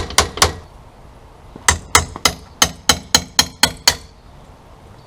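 Hammer blows on metal with a bright ringing: two quick strikes, a pause of about a second, then a steady run of about nine strikes at roughly three a second.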